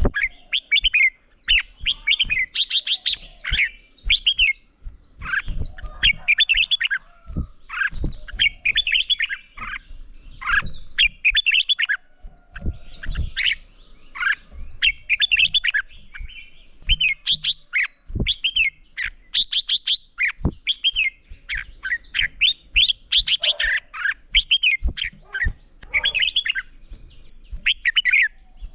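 Red-whiskered bulbuls singing in rapid, overlapping warbled phrases, a loud run of competitive song with only brief gaps, mixed with frequent short low knocks.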